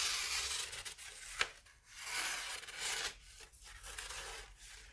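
Yakut knife blade slicing into a sheet of paper, a dry scratchy rasp in two longer strokes with a short tick between and fainter scrapes after. This is a sharpness test of an edge with flaws at the belly and the tip.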